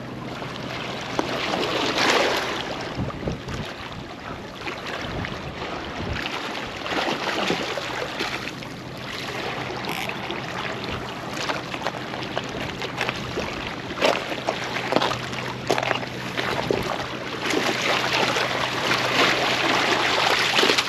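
Water sloshing and splashing as a hooked flathead is played in close and landed, with wind buffeting the microphone. A faint steady hum runs underneath.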